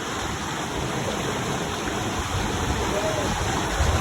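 Whitewater rapids rushing steadily, with a faint voice heard briefly about three seconds in.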